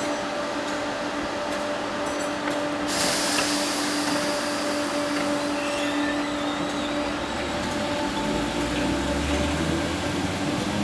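Merseyrail electric multiple-unit train at the station: a steady electrical hum, with a hiss coming in sharply about three seconds in and a low rumble building in the later half as the train gets moving.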